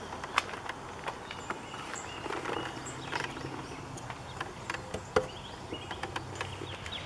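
Outdoor background with faint bird chirps, scattered light clicks and rustles, and a faint low hum in the second half.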